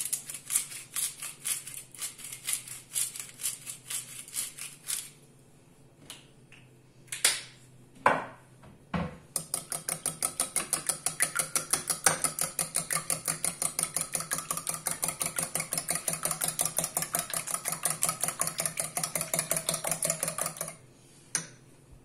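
Eggs being beaten in a bowl with a utensil: rapid rhythmic clicking strokes against the bowl, about three a second at first. A few separate knocks follow around the middle, then a faster, longer run of about six strokes a second that stops shortly before the end.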